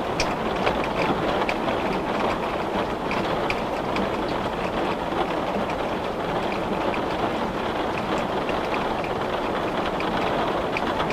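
Heavy rain beating on a glass window: a steady dense patter with scattered sharper drop ticks.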